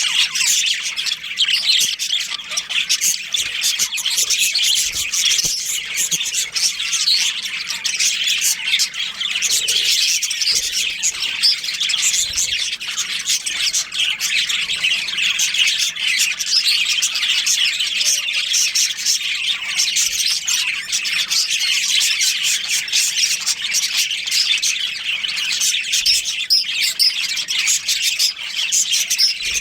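A colony of budgerigars chirping and squawking continuously, many birds calling at once in a dense, unbroken chatter of short high calls.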